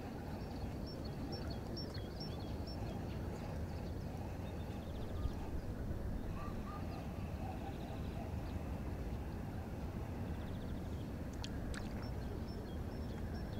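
Outdoor ambience: a steady low rumble, with faint high bird chirps in the first few seconds and a few light clicks near the end.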